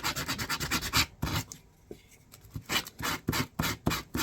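Hand sanding with 120-grit sandpaper on turned wood: rapid rubbing strokes at first, a short pause about a second in, then slower, spaced strokes, about three a second.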